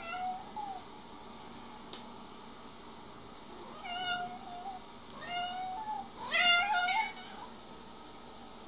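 A cat meowing four times in drawn-out calls that rise slightly in pitch, the last one the loudest and longest.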